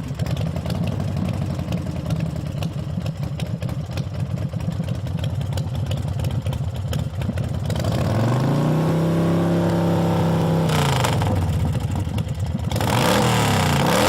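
Yamaha V Star 1300's V-twin engine running with a rapid low pulsing beat. About eight seconds in, the engine note rises, holds and drops back down, then rises and falls again near the end.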